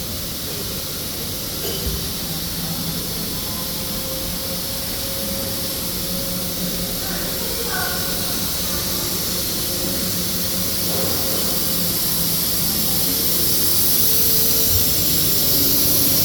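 Industrial machinery running steadily: a constant high hiss over a low hum, slowly getting louder toward the end.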